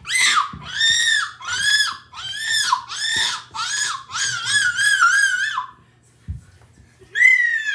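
A child's high-pitched squealing voice, playing fight noises for stuffed animals: about six short rising-and-falling squeals in quick succession, then a longer wavering one. After a pause with a soft thump, one long falling squeal near the end.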